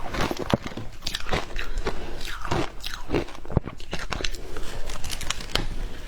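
Frozen matcha ice being bitten and chewed: a rapid, irregular run of crisp crunches and cracks.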